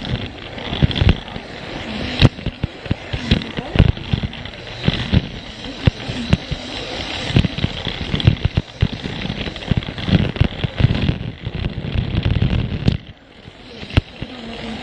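Plarail plastic toy train running along plastic track with sharp clicks and clacks as it rolls over the track joints, and a steady rattle from its battery motor and wheels. Voices chatter in the background.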